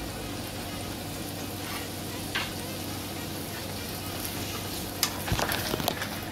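Chopped onion and garlic sizzling in oil in a nonstick frying pan, with a lump of margarine melting in. A wooden spatula clicks once against the pan about two seconds in, then knocks and scrapes across it several times near the end as it stirs.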